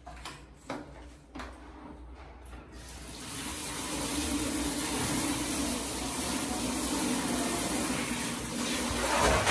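A few light knocks, then about three seconds in a handheld shower head starts spraying into a plastic basin already partly full of water: a steady hiss of spray splashing into the water.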